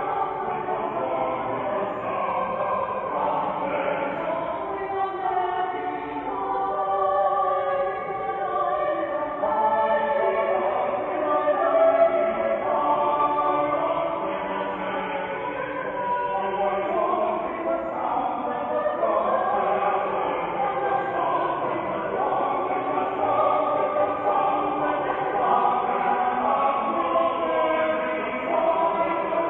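Church choir singing an English Baroque anthem, voices sustained and moving together without a break.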